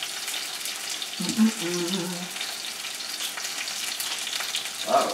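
Sesame-crusted tuna steaks searing in hot oil in a frying pan: a steady sizzle with small crackles. A short low murmur from a man's voice comes about a second in.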